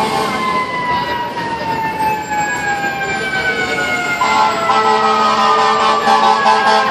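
Fire truck sirens on responding FDNY apparatus: a long, slowly falling wail, then a second siren tone coming in loudly about four seconds in.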